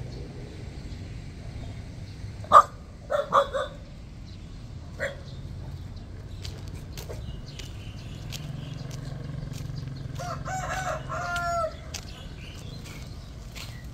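Rooster crowing once, a pitched call of about a second and a half starting about ten seconds in. Earlier, a few short loud calls, the loudest about two and a half seconds in.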